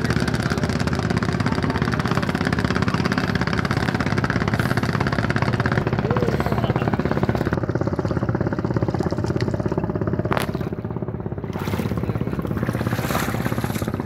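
A motor running steadily at an even level, with a single sharp knock a little after ten seconds in.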